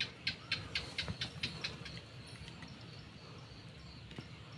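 A small animal, bird or gecko, calls a quick series of about eight sharp chirps, about four a second, fading away over the first two seconds. After that only a faint steady background hum remains.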